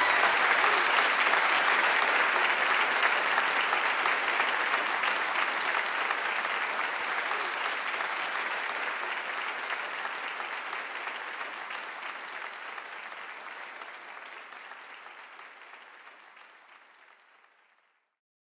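Live concert audience applauding, fading steadily down to silence near the end.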